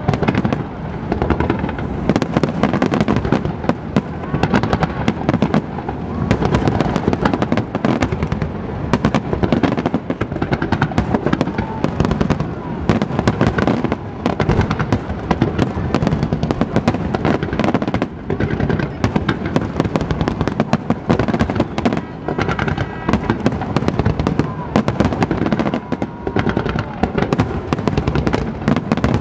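Aerial fireworks display: shells bursting in a dense, rapid string of bangs and crackles that hardly lets up.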